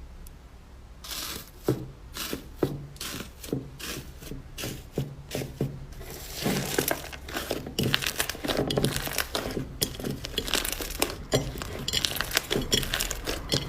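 Slime being squeezed and poked, giving a string of sharp crackling pops that come thicker and faster from about six seconds in.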